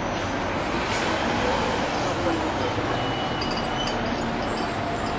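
Fire engine moving slowly at close range in street traffic, its engine and the surrounding traffic giving a steady, even noise.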